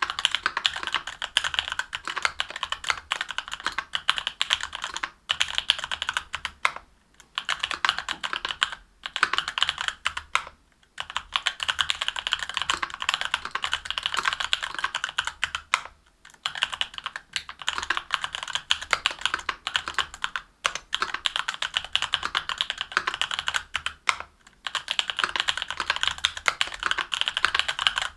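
Fast continuous typing on a mechanical keyboard with stock Durock Korbs 62g linear switches, aluminium plate and GMK keycaps: a dense stream of sharp key clacks, broken by several brief pauses.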